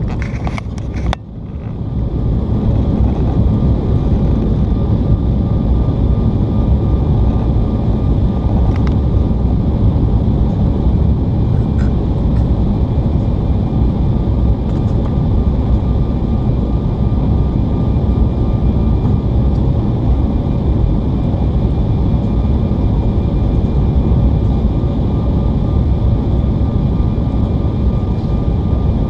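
Steady cabin noise inside an Embraer E175 descending to land: a low rumble of airflow and its wing-mounted GE CF34 turbofans, with a faint steady whine of engine tones above it. A few knocks and clicks in the first second or so.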